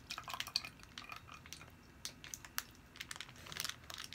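Faint, scattered sticky clicks and crinkles of a plastic popsicle wrapper squeezed in wet hands, with mouth sounds near the end as melted coconut popsicle is sucked from the wrapper.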